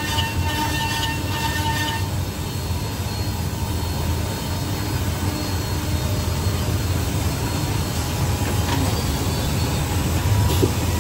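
Woodmaster 8-axis, 32-tool CNC wood-machining centre running while it shapes a row of wooden chair and table legs: a steady low mechanical rumble with high whining tones from the spindles, and the whine drops away about two seconds in.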